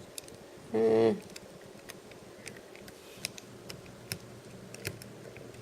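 Light, scattered plastic clicks from an action figure's joints being moved and posed by hand, with a short hum of voice about a second in.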